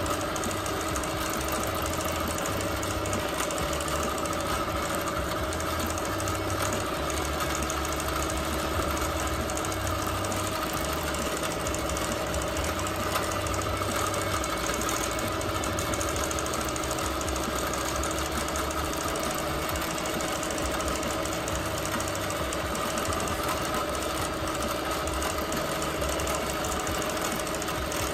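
Bernina Q24 longarm quilting machine stitching continuously through a quilt during free-motion quilting, its motor and needle running with a steady hum.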